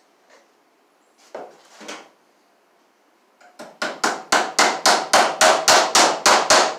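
Claw hammer driving a fastener into the wooden framing at an electrical box: about a dozen quick, sharp blows, roughly four a second, getting louder. Two softer knocks come first.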